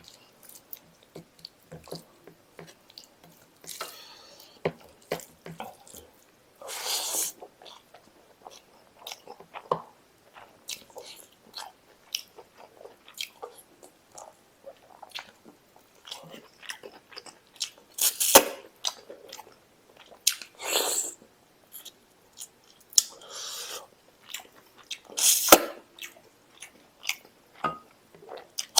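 Close-miked chewing of mutton curry and rice, with many short wet mouth clicks and smacks and several louder noisy sounds, each about half a second long, spread through.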